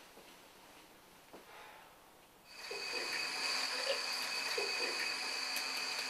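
Bathroom sink faucet turned on about two and a half seconds in, water running steadily onto hands with a high-pitched whistle from the tap.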